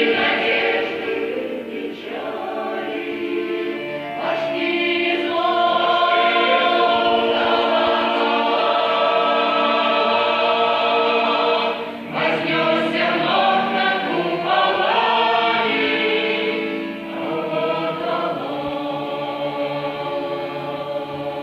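A choir singing, with sustained chords that change every second or so.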